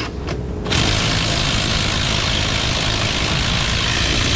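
A loud, steady machine noise, like a motor running, that starts abruptly less than a second in and holds evenly, after a few short clicks.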